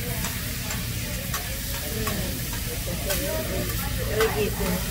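Food sizzling on a hibachi griddle: a steady hiss with scattered sharp clinks of metal utensils, over a faint murmur of voices.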